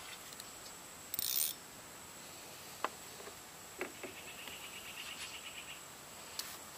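Baitcasting fishing reel being handled and cranked after a cast: a short hiss about a second in, a couple of sharp clicks, then about two seconds of the reel's fine, even ticking as the handle turns.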